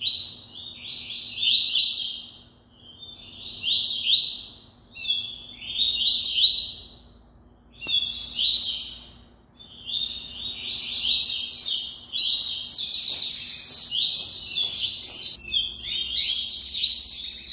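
Caged double-collared seedeaters (coleiros) singing in fast, high song phrases of a second or two with short pauses between them. From about ten seconds in the phrases follow each other almost without a break.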